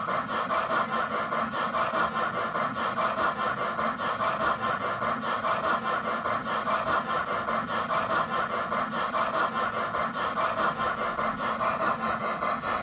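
Hornby P2 2-8-2 model steam locomotive running on test rollers, its sound decoder giving steam chuffs in a steady, rapid rhythm over the mechanical rumble of the running gear on the rollers.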